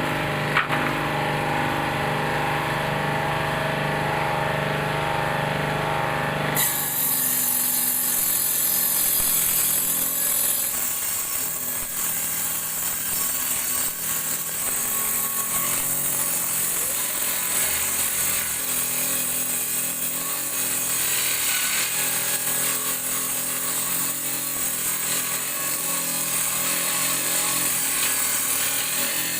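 Homemade table saw driven by a used water-pump motor with an 8-inch circular saw blade: it starts with a steady hum, running free, and about six and a half seconds in the blade begins cutting, with a loud, rasping sawing sound that goes on to the end.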